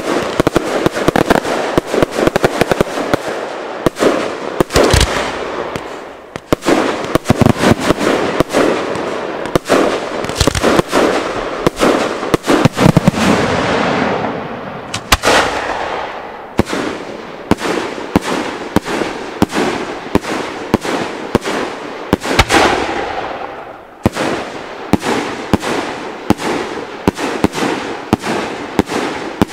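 Fireworks display: a loud barrage of aerial firework bursts, many sharp bangs in quick succession. In the second half the bangs fall into a more even run of about two a second.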